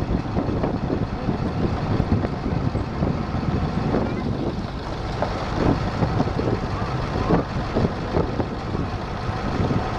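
A vehicle's engine and tyres rumbling as it drives slowly along a dirt road.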